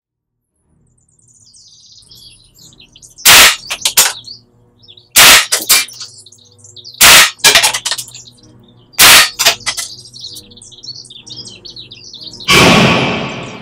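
Four gunshots about two seconds apart from a four-barrel Reform pistol in 6.35 mm (.25 ACP), each followed by a few quick sharp clicks, over birds chirping and a low steady hum. Near the end a longer noisy swell rises and fades out.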